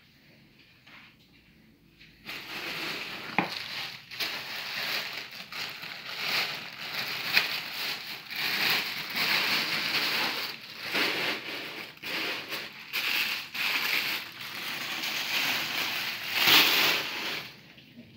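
Plastic packaging crinkling and rustling as it is handled and unwrapped, starting about two seconds in and stopping shortly before the end, with a couple of sharp clicks early on.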